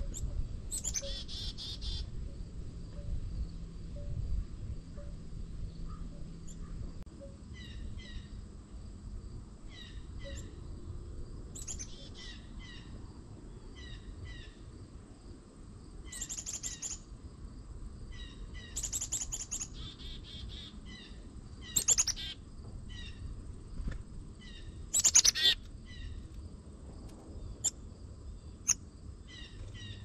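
Small songbirds calling around a feeder: repeated short, high chirps and paired notes, with two louder, sharp, falling calls in the second half.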